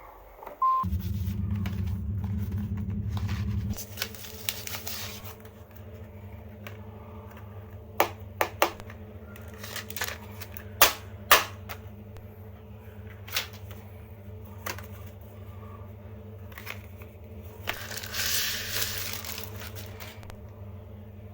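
Packaging and a phone being handled during an unboxing: a series of sharp clicks and taps, then a short rustle of packaging. A steady low hum runs underneath and is much louder for the first few seconds.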